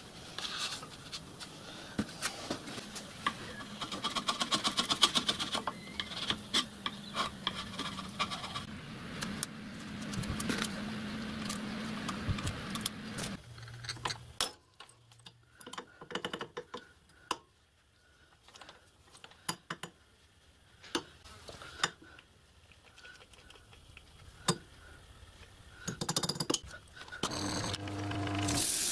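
Hands working at a workbench: paper and masking tape rustling and being pressed down, with small metal parts clinking and a steady low hum underneath. After about 13 seconds the hum stops and there are only scattered taps and clicks of tools and parts being handled, then a brief rhythmic mechanical sound near the end.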